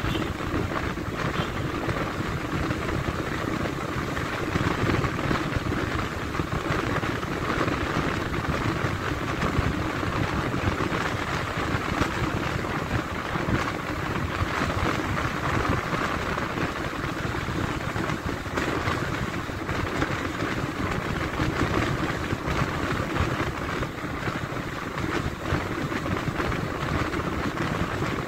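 Steady rushing road and wind noise of a vehicle on the move.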